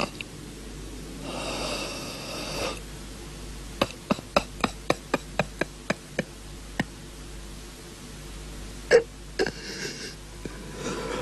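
A man sobbing: a long gasping breath in, then a quick run of about ten short, sharp sobs, about four a second, and a single louder one later, followed by another gasping breath.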